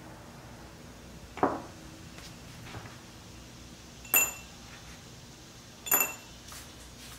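Two rusty steel axle rods dropped one after the other into a small glass jar of rust-remover liquid, each giving a sharp ringing clink against the glass, about two seconds apart. A duller, softer knock comes first.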